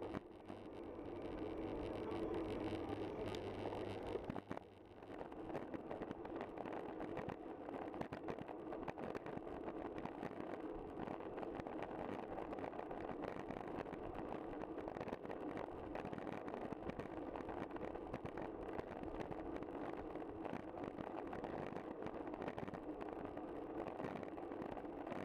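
Steady rumble and rush of a road bicycle on the move, with tyres on tarmac and wind over the camera's microphone. A low hum runs through the first few seconds, and the noise dips briefly about four and a half seconds in.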